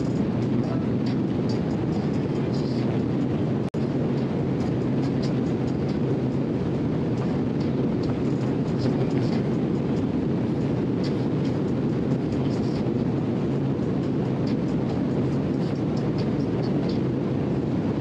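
Two-stroke Evinrude outboard running steadily at speed, mixed with the rush of water along the hull and wind.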